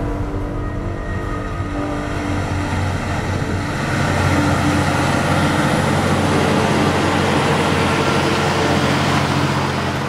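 Case IH Quadtrac tracked tractor running under load, pulling a Horsch disc cultivator through corn stubble. The engine drone mixes with the rattle of tracks and discs, growing louder about four seconds in as it passes close.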